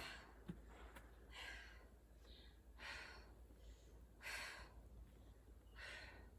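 A woman's heavy breathing, four long breaths about a second and a half apart, out of breath after a set of bunny hops. One faint thump comes about half a second in.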